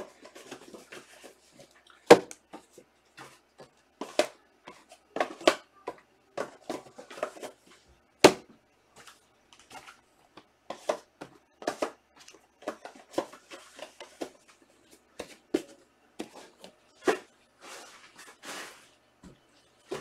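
Trading cards and their pack wrappers being handled on a table: a string of short taps and clicks with some rustling and crinkling, with two sharper knocks, about two seconds in and about eight seconds in.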